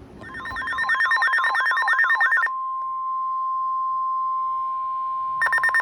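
Weather alert radio sounding an alert. Fast electronic beeping with a warbling tone over it breaks off into about three seconds of a steady single tone, the NOAA Weather Radio warning alarm tone that signals a new warning. The fast beeping starts again near the end.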